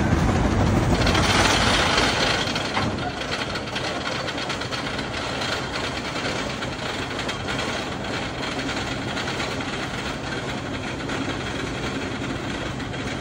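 A wooden roller coaster train being hauled up its chain lift hill, a steady mechanical clatter with faint rapid clicking. A louder rushing noise fills the first two to three seconds.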